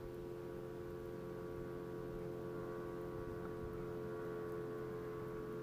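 Steady hum with several fixed tones, one low and a cluster higher up, holding unchanged throughout.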